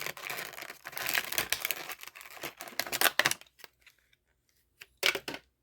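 Plastic blister packaging and card of a die-cast toy car crinkling and crackling as it is handled. The crackling is dense for the first three seconds or so, then drops to a few scattered clicks, with one short crackle about five seconds in.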